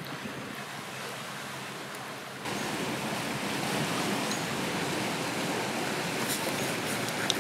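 Steady rushing of sea surf, which steps up louder about two and a half seconds in, with a few faint clicks near the end.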